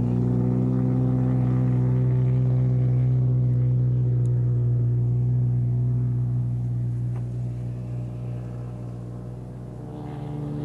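Engine of a giant-scale RC model aircraft running steadily at high power, holding one pitch. It grows a little quieter near the end, then rises again.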